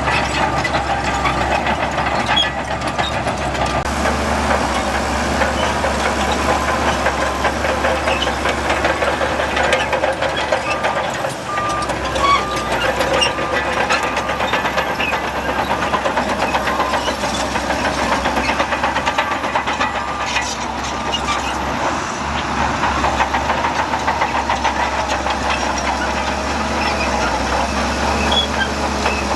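Heavy diesel earthmoving machinery running steadily under load, with a dump truck and bulldozer at work. A short run of evenly spaced beeps sounds about midway, like a reversing alarm.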